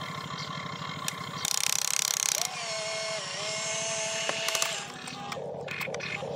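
RC excavator's electric motors and gearboxes whirring as the model lifts its bucket and swings toward the truck, with a steady fast rattling pulse under a gliding whine. A loud rasping burst comes about a second and a half in.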